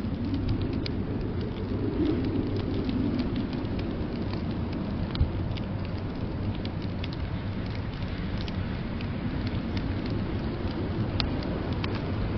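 Wood fire crackling in a fireplace, with many small sharp pops at irregular moments, over a steady low rumble of blizzard wind.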